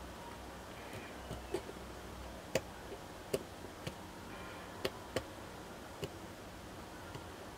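Small slide switches on a DSO138 oscilloscope kit board clicking as they are flicked between input sensitivity settings: about nine short, sharp clicks at irregular intervals.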